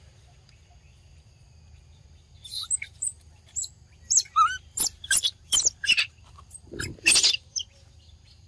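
A quick run of sharp, high animal chirps and squeaks, a dozen or so, starting about two and a half seconds in. A faint steady high whine sits underneath.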